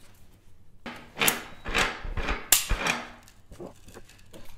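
Knocks and clunks of heavy steel crankshaft parts being handled on a steel workbench, with three louder knocks between about one and three seconds in.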